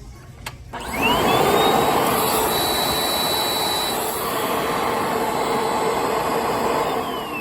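Eureka AirSpeed Zoom upright vacuum cleaner switched on with a click: its motor spins up in a quick rising whine, runs steadily and loudly, then is switched off near the end and begins to wind down. The brush roll is jammed and does not turn.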